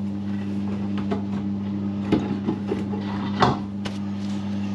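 A few sharp knocks and clicks of hands handling a toilet cistern's plastic fittings, over a steady low hum.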